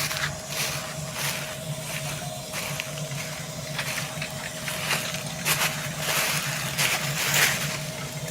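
Combine harvester running with a steady engine hum, overlaid by irregular crackling noises.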